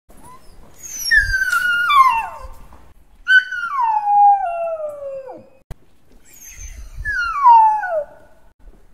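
A dog whining in three long, high cries, each sliding down in pitch.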